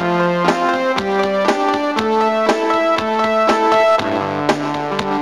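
Instrumental background music: sustained chords that change about twice a second over a steady beat.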